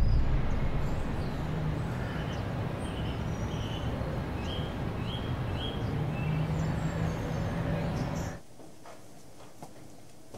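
Street ambience: a steady wash of traffic noise with a low hum and birds chirping briefly several times. About eight seconds in it cuts to quiet room tone.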